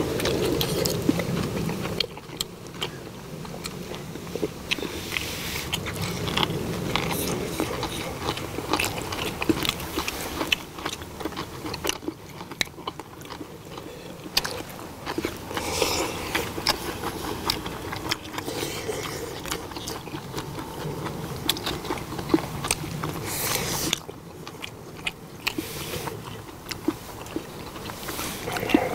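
Close-miked chewing and biting of stir-fried pork and kimchi, wet and smacking, with many short sharp clicks scattered through it.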